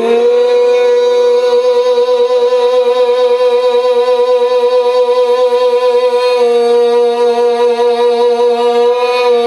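A man's devotional singing voice, close-miked, sliding up into one long held note and sustaining it with a slight waver for about nine seconds. A fainter steady lower tone runs beneath it.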